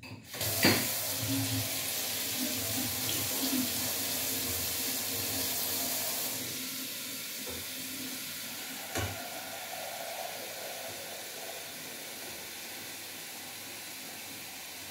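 Hot water running from a kitchen tap into a metal pot, filling it. The flow is steady, getting a little quieter about six seconds in, with a sharp clank just after the start and a lighter knock about nine seconds in.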